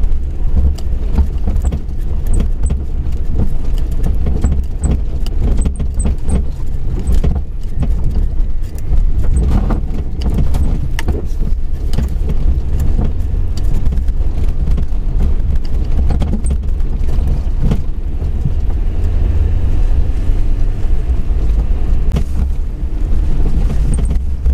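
Suzuki Jimny driving along a rough, unsurfaced green lane: a steady low engine and road rumble, with many short knocks and rattles as the vehicle jolts over the bumps.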